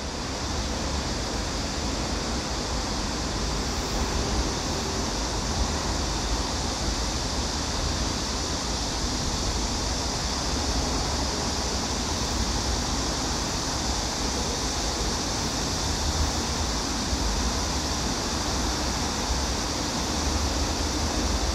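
Steady background noise on an elevated subway platform with no train present: an even rushing hiss over a low rumble, unchanging throughout.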